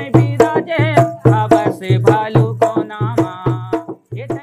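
A man singing a Chhattisgarhi jas geet in clipped, rhythmic syllables that imitate an echo, over a percussive beat about three times a second, with a wavering vibrato on some held notes; it thins out near the end.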